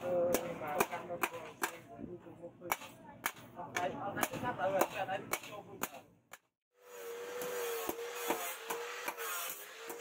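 Hand hammer striking a red-hot steel blade on a steel anvil: sharp ringing blows about two a second. After a brief break about six and a half seconds in, a steady wavering hum comes in under lighter, slightly quicker strikes.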